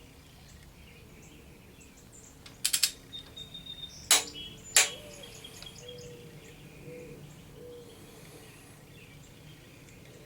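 Ratchet-head torque wrench tightening cylinder head bolts on a small-block Chevy 383 stroker: a quick run of ratchet clicks about three seconds in, then two sharp metallic clicks with a short ring about four and five seconds in, as the bolts are brought to 65 ft-lb.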